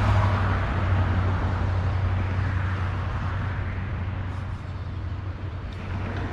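Road traffic crossing the concrete bridge overhead: a steady low rumble with tyre noise that swells at the start, again midway, and near the end as vehicles pass.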